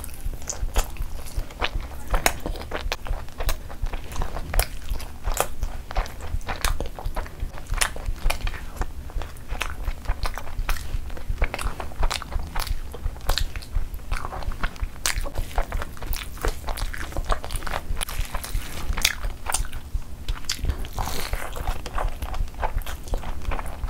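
Close-miked chewing of a mouthful of chicken biryani eaten by hand: a quick, irregular run of wet mouth smacks and clicks, with some crunchy bites.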